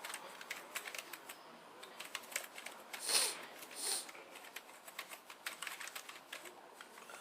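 A person sniffing twice, short and sharp, about a second apart near the middle, over light irregular clicking and tapping.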